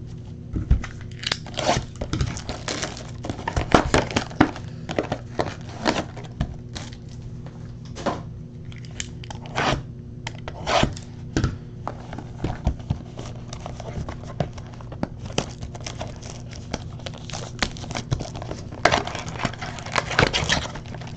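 A 2019 Topps Finest baseball card pack wrapper being handled and torn open: irregular crinkling, tearing and crackling of the plastic, with small clicks and taps of cards and packaging in the hands.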